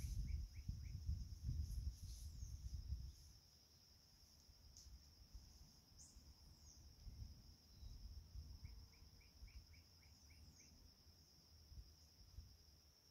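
Steady high-pitched drone of insects, with scattered short bird chirps and a quick run of clicking notes heard twice. A low rumble sounds for the first three seconds, then drops away.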